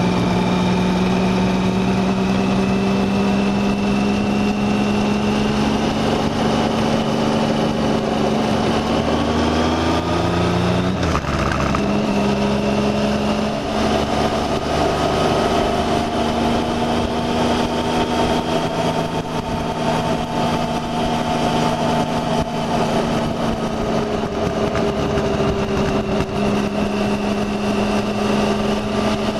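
Motorcycle engine running on the move. Its pitch climbs steadily for about ten seconds, drops abruptly about eleven seconds in as it shifts up a gear, then holds fairly steady at cruise.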